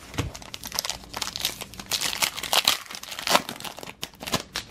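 Foil wrapper of a 2009 Upper Deck Series 1 baseball card pack being torn open and crinkled by hand: a run of dense crackling and rustling, with the sharpest rips about two to three and a half seconds in.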